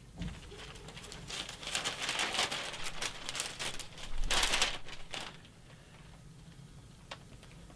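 Rustling and crinkling noise with many small clicks for about five seconds, loudest near the middle, then quiet apart from a single click near the end.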